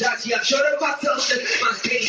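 Karaoke hip-hop backing track playing loudly, with a man rapping along into a microphone.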